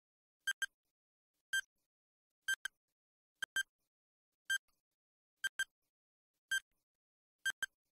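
Countdown timer sound effect ticking about once a second, each tick a short, high-pitched electronic blip, several of them doubled into a quick pair.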